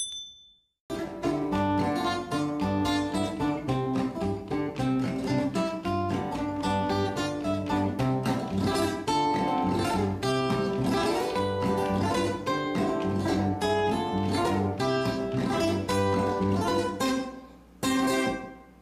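Instrumental background music, starting about a second in, with a short ringing chime at the very start. The music fades near the end, then comes back briefly.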